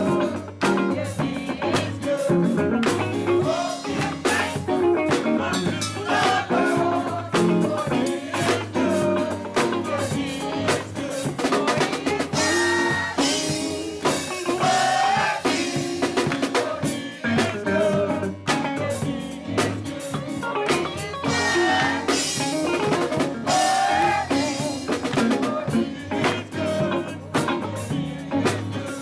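Church mass choir singing a worship song over a live band, with a drum kit keeping a steady beat.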